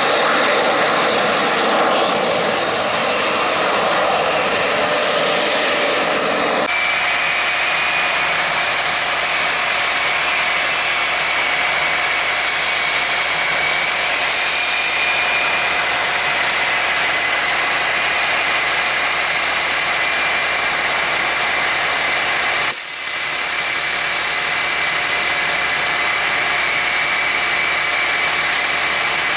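Jet engines of Blue Angels F/A-18 Super Hornets running on the ground, a loud steady rushing hiss with a high whine. The sound shifts abruptly about seven seconds in to a steadier whine as four jets hold on the runway, with a brief dip late on.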